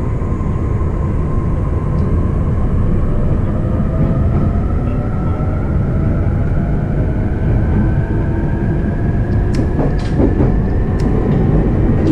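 Running noise of an E531-series electric train, heard from inside a motor car: a steady rumble of wheels on rail under the whine of the traction motors, which rises slowly in pitch as the train gathers speed. A few sharp clicks come about ten seconds in.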